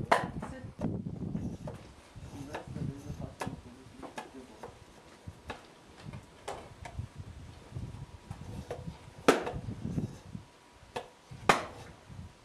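A large knife chopping and splitting thin wooden sticks against a wooden plank, as in hand-making wooden skewers. The strikes are sharp and short and come at irregular intervals, a few of them much louder than the rest.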